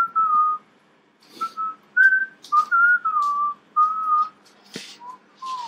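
A person whistling, a string of short held notes that step and slide up and down in pitch, with a few clicks and rustles of handling, one sharper knock about five seconds in.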